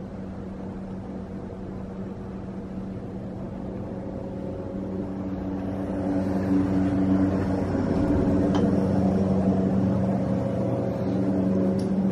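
A steady low hum made of several held tones, growing gradually louder, with a single faint click about eight and a half seconds in.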